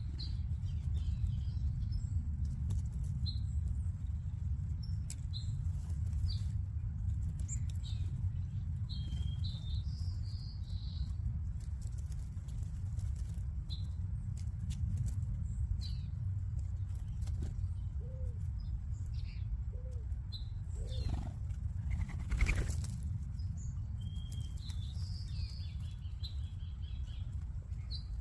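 A flock of small seed-eating birds at a backyard feeder, many short high chirps and tweets overlapping throughout over a steady low rumble. About three-quarters of the way through comes a brief louder rush.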